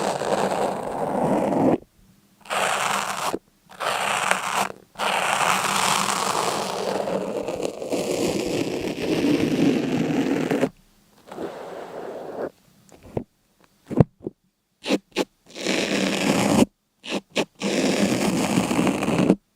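Rough scraping noise, steady for about ten seconds apart from a few sudden brief dropouts, then breaking into a string of short scraping bursts with abrupt silences between them.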